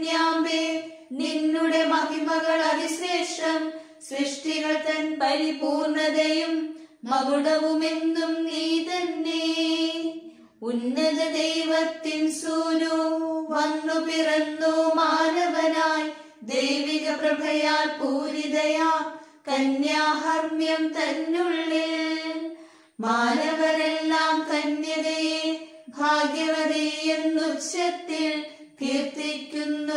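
Unaccompanied singing of a Malayalam hymn from the Nasrani (Syro-Malabar) hour prayers, in sung phrases of about three seconds each with short breaks between.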